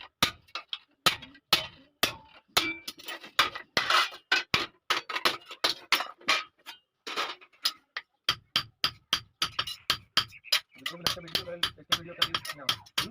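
Blacksmith's hand hammer striking hot iron on an anvil while forging a hasuwa blade: a run of sharp metallic blows, about two to three a second, coming faster in the second half.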